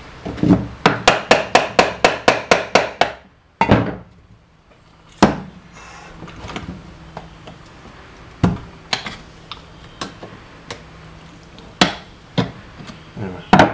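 Metal hammer blows on a screwdriver wedged into the seam of a Tecumseh Peerless transaxle case, to split the case halves apart. A quick run of about a dozen sharp strikes, roughly four a second, then single knocks every second or few.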